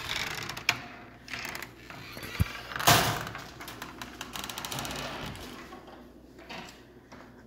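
A door being opened and shut while walking in: a latch click, a knock, and a louder bang about three seconds in.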